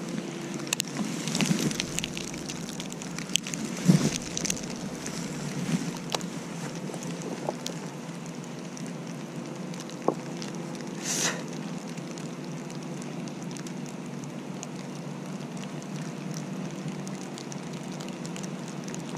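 Freezing rain pattering steadily with fine crackling ticks, over a low steady hum. A few knocks of handling come near the start and a few seconds in, and a short hiss about eleven seconds in.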